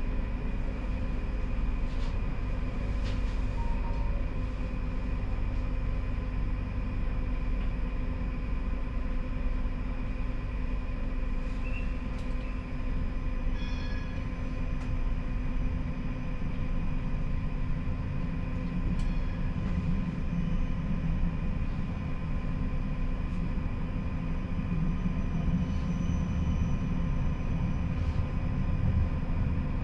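Siemens Combino tram running along its rails, heard from the driver's cab: a steady low rolling rumble with a faint constant hum and a few small clicks, growing somewhat heavier over the last third.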